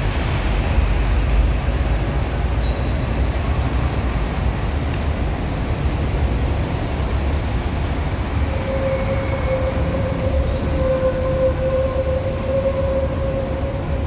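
Hong Kong MTR Light Rail Phase I car making a steady low rumble and hum. A few faint clicks come in the first seconds, and a steady mid-pitched whine joins about eight seconds in.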